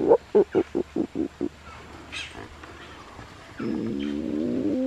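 Spider monkey calling: a quick run of short calls, about five a second, then after a pause one long wavering call near the end.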